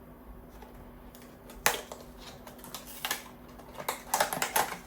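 A small cardboard blind box being handled and opened: scattered sharp clicks and crinkles of cardboard and packaging, with a quick cluster of them near the end.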